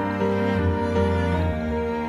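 Slow, sad-sounding background music with held string notes.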